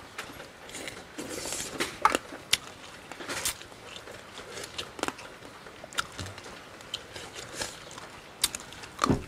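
A person chewing and biting pieces of frog stew, mostly wet mouth sounds with small irregular crunches and clicks. One louder crunch comes near the end.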